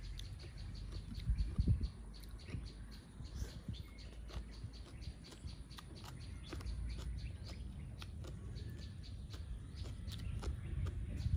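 Close-miked eating: chewing with many small wet mouth clicks and smacks, over a low uneven rumble.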